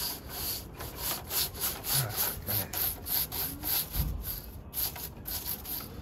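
Hand broom's stiff bristles brushing quickly back and forth over a Lasko box fan's plastic grill, about four strokes a second, scrubbing off caked cigarette dust. The strokes grow weaker near the end.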